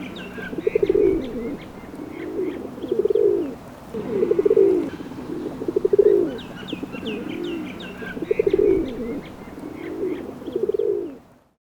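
Pigeons cooing, a low throaty coo every second or two, with faint higher chirps over them. The sound cuts off near the end.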